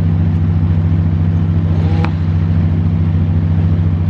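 A steady low engine drone with a fast even pulse, like a motor vehicle running at constant speed. A short click with a brief rising tone about two seconds in.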